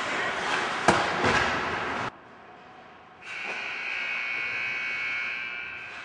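Ice hockey rink sounds: loud, even rink noise with two sharp knocks about a second in, then a sudden drop, and from about three seconds a steady high tone that holds for about three seconds.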